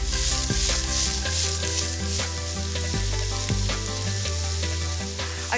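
Chopped onion, celery and carrot sizzling as they fry in oil in a pot, tossed about in the pan at the start. Soft background music runs underneath.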